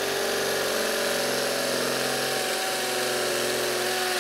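Craftsman brushless cordless hammer drill hammer-drilling a 1/2-inch masonry bit into a concrete block, running steadily under load at an even pitch.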